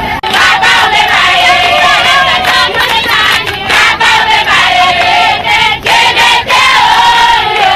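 A crowd singing and chanting together in high voices, holding long notes, with shouts among them.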